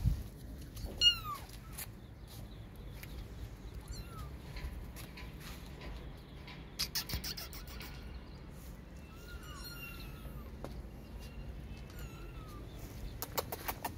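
Cats meowing: about four short, high-pitched meows that fall in pitch, the loudest about a second in and fainter ones later. A short run of clicks comes a little after the middle and again near the end.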